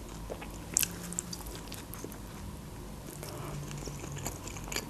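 Close-miked mouth sounds of someone chewing a soft Turkish flatbread: faint scattered wet clicks, with one sharper click about a second in.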